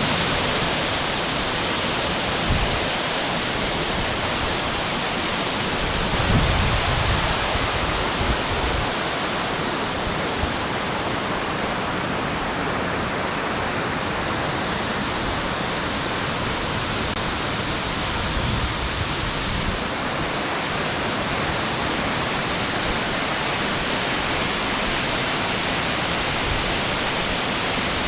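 Waterfall on a mountain gorge stream, a steady, unbroken rush of falling water, with a brief low rumble about six seconds in.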